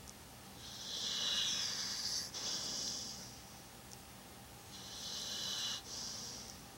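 Sleeping pet snoring: two slow, hissy breaths about four seconds apart, each breaking briefly in the middle.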